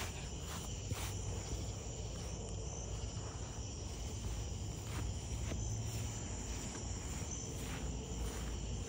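Insects chirping steadily, with a continuous high-pitched trill, over a low rumble.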